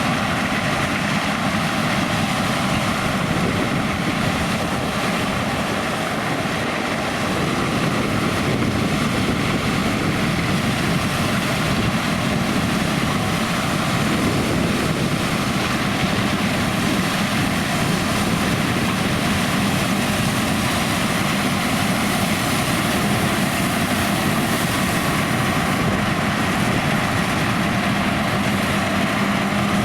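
John Deere X9 1100 combine harvester running steadily while cutting oilseed rape: a constant, even noise of engine and threshing machinery.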